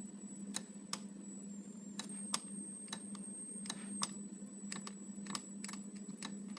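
Refrigerator control board giving off a steady, high-pitched whine over a low hum, while a plastic stick taps and presses on its parts in irregular clicks. The whine shifts slightly higher in pitch between about two and four seconds in, changing as the board is pressed; the repairer suspects a coil on the board, or a cracked solder joint.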